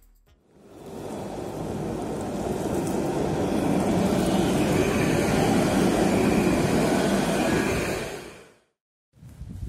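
Alstom Citadis 302 tram running on rain-wet rails, its rolling noise swelling over the first few seconds and then fading out shortly before the end.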